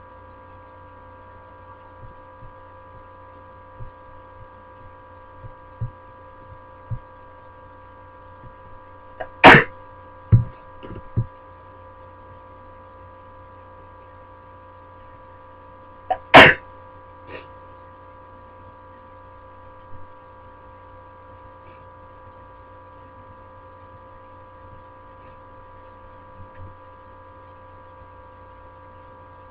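A person sneezing loudly, once about nine seconds in and again about sixteen seconds in, the first sneeze followed by two shorter loud bursts. A steady electrical hum sits underneath.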